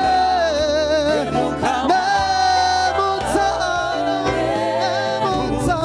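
Gospel worship music: a singer holding long, wavering notes over a steady instrumental backing.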